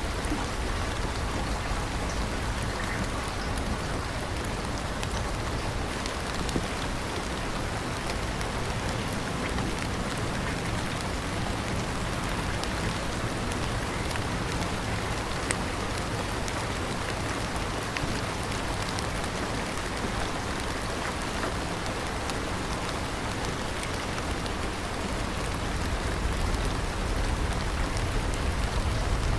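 Steady rain falling on a surface, an even hiss with scattered small drop ticks, growing slightly louder and deeper near the end.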